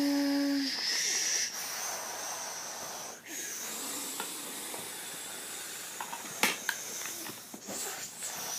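Henry vacuum cleaner running with a steady, high-pitched airflow hiss that dips briefly twice. A few sharp clicks come about two-thirds of the way through.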